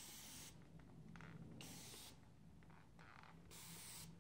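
Spray bottle misting water onto hair: three short, quiet sprays, about one and a half to two seconds apart.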